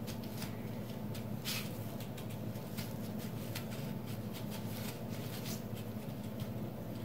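Gloved hands rolling and pressing a cheese stick in dry panko breadcrumbs on a plate: a soft, irregular gritty rustling and scratching. A steady low hum runs underneath.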